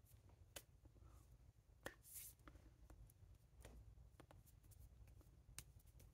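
Near silence: a faint low room hum with scattered soft clicks and a brief rustle about two seconds in, from hands and jacket sleeves moving while signing in sign language.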